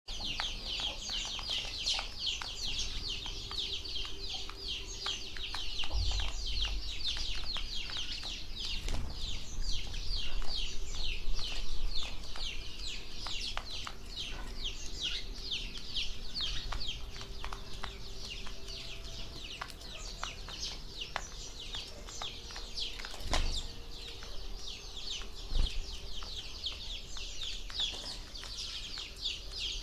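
A flock of small birds chirping continuously, many short high calls every second, with a few low thumps in between.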